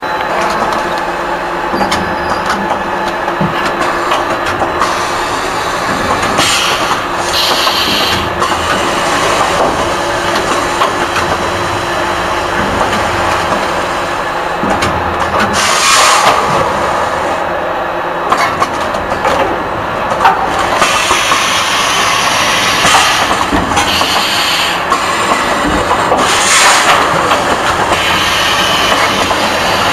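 Automatic bag-filling packaging machine for pet food running: a steady mechanical clatter, broken every few seconds by short bursts of hissing from its air-driven cylinders.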